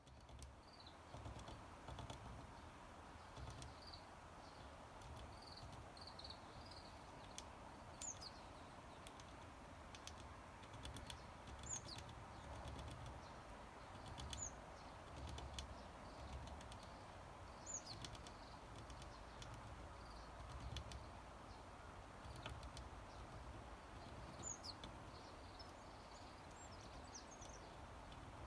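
Faint, high, thin chirps of a varied tit, short notes that slide down in pitch, repeated every few seconds, with a few soft clicks between them.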